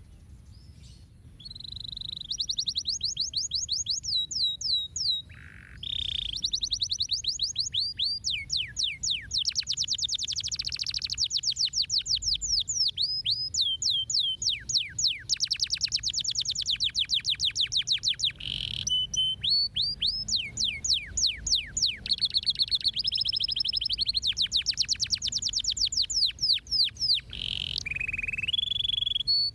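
Domestic canary singing: rapid rolling trills of repeated downward-sweeping notes, phrase after phrase, starting after a short lull.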